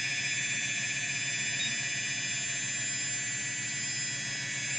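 XK X380 quadcopter's brushless motors spinning without propellers at full throttle: a steady, many-toned electric whine.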